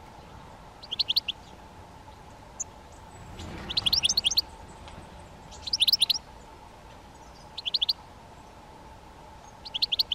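A bird calling in five short bursts of quick, high chips, each burst a rapid run of a few notes, a couple of seconds apart.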